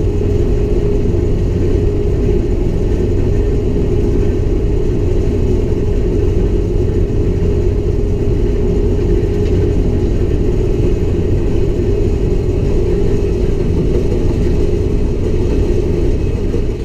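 New Holland combine harvester running steadily under load, a continuous machine rumble with a steady mid-pitched hum.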